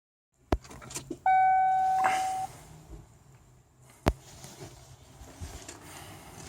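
Clicks inside a 1992 Ford F-250's cab, then the truck's electronic warning chime holding one steady tone for about a second, and a single loud click about four seconds in; the engine is not yet cranking.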